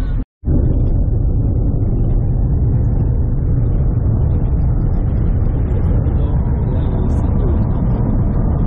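Steady, loud road and engine noise heard from inside a moving car.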